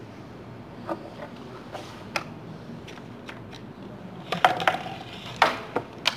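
Irregular sharp clicks and knocks over a steady low hum, with a cluster of louder knocks about four and a half to five and a half seconds in.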